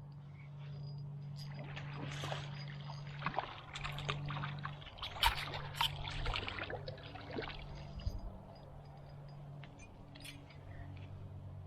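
Water splashing and sloshing in a cluster of splashes and clicks, busiest in the middle, over a steady low hum.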